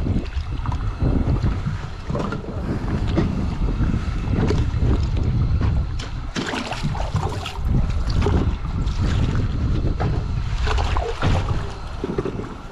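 Wind rumbling on the microphone, with splashing and irregular clinks as a wire fish basket is worked in the water and a caught crappie is put into it.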